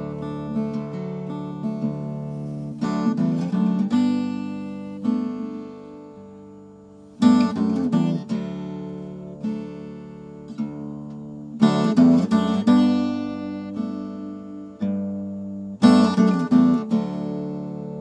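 Solo acoustic guitar playing an instrumental passage: ringing picked notes and chords, with a hard strummed chord about every four seconds that rings out and fades.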